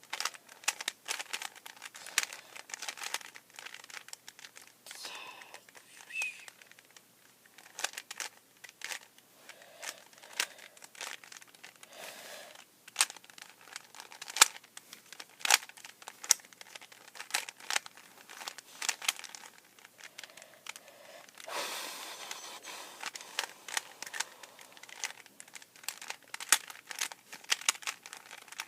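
Plastic Rubik's cube being twisted by hand: quick, irregular clicks and clacks as the layers turn. A short rustle a little past the middle.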